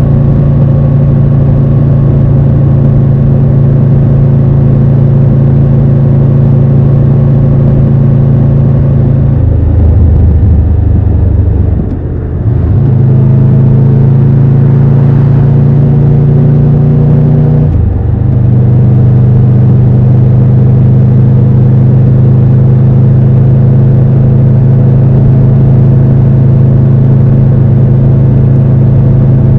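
Triumph Tiger 1200 Rally Pro's three-cylinder engine running at a steady cruising note. The revs drop and change about a third of the way through, and again with a brief dip a little past halfway, before settling at a slightly lower steady pitch.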